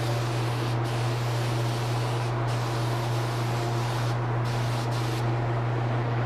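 Spray gun hissing steadily as finish is sprayed, over a steady low motor hum. The high part of the hiss drops briefly a few times and for longer near the end.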